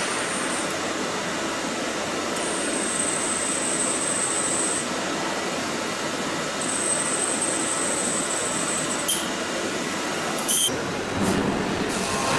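Hwacheon L1 2500 double-column machining center drilling aluminium with a 5 mm drill at 3,000 rpm: a steady hiss of coolant and machine noise, with a high whine that comes and goes twice. Two brief sharp sounds follow, and near the end the sound shifts to a lower, steadier hum as rough milling begins.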